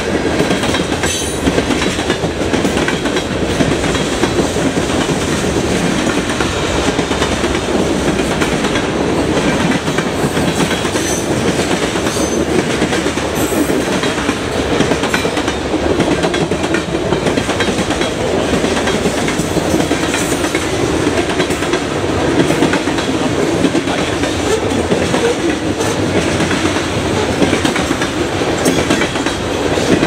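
Freight cars of a CN freight train rolling steadily past: a continuous rumble and clatter of steel wheels on the rails.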